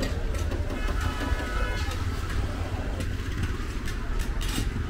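Roadside street noise: a steady low rumble of passing vehicle traffic, with scattered small clicks and knocks.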